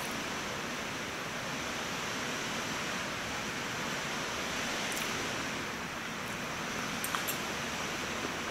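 Steady, even hiss of background noise, with a few faint clicks about five and seven seconds in.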